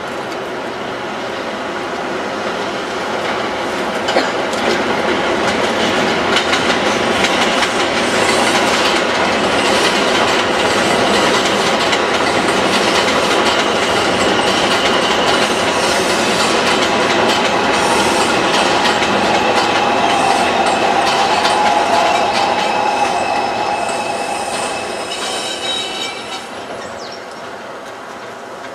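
Subway train passing on elevated steel track: wheels running over the rails with a high wheel squeal, growing louder about four seconds in and fading away near the end.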